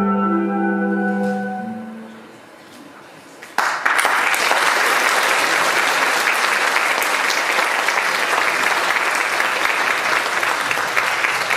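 Music ends, fading out over the first two seconds; after a short lull an audience starts applauding suddenly, about three and a half seconds in, and keeps clapping steadily.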